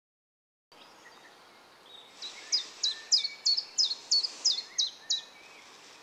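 A small bird calling over faint outdoor background: a run of about eight sharp, high-pitched falling notes at roughly three a second.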